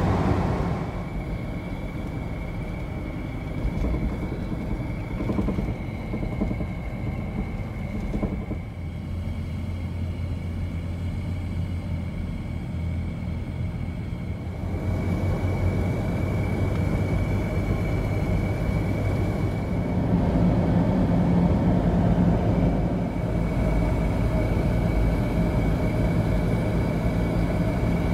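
Cabin noise of a 1999 Toyota 4Runner on the move: a steady engine and road rumble, with a thin high whine running under it. The rumble grows louder about halfway through.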